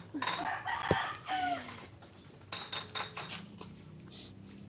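A chicken clucking, a couple of short falling calls in the first two seconds, among light clicks and knocks.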